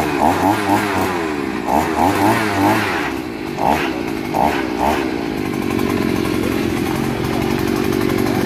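Handheld engine-powered earth auger drilling into soil, its small engine rising and falling in speed over and over for the first five seconds or so, then running steadily under load.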